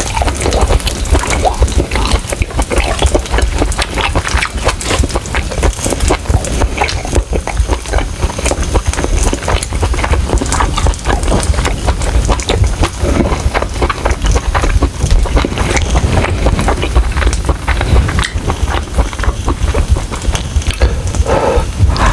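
Close-miked chewing and lip-smacking while eating grilled pork: loud, wet mouth sounds made of a dense run of clicks and smacks over low thumps.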